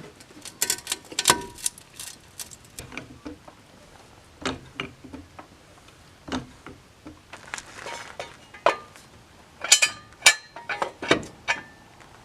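Irregular knocks and metallic clanks, some with a brief ring, loudest about a second in and again near ten seconds in: a piece of wood and a steel jack stand being handled and set under a jacked-up car.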